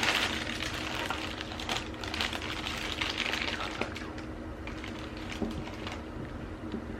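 Rapid, irregular clicking and clatter over a steady low hum, with faint voices.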